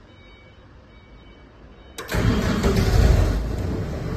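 Faint short beeps over a low hum, then about two seconds in the diesel engine of a portable screw air compressor cranks and fires, and keeps running loudly: the start at the end of the preheating countdown.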